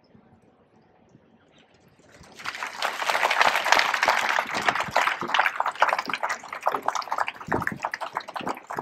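Crowd applauding. The clapping starts about two seconds in and thins out near the end.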